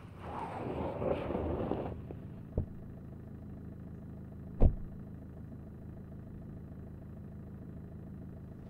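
A low steady rumble, with a hiss that swells and fades over the first two seconds and two dull thumps, the second one louder.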